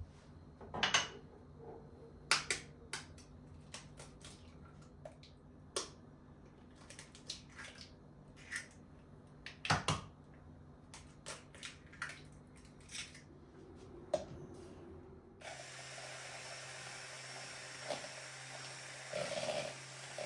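Kitchen handling sounds: scattered light clicks and knocks of utensils and dishes. About three-quarters through, a steady low hum with a hiss takes over, with a few softer knocks.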